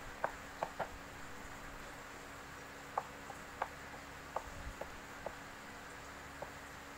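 Large kitchen knife cutting soft tofu into small cubes, the blade tapping down on a wooden cutting board in light, irregular knocks: a quick cluster in the first second, then more scattered taps from about three seconds in.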